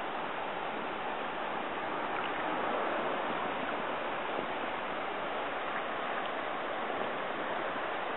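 Steady rush of stream water flowing and rippling over the shallows.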